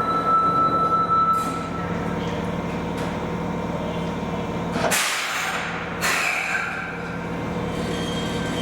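Fukuoka City Subway 1000N-series train running, a steady motor hum over wheel and rail noise, with a short hissing rush about five seconds in.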